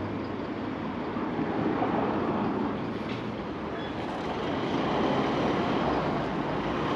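Steady rushing noise of street traffic, growing a little louder about halfway through.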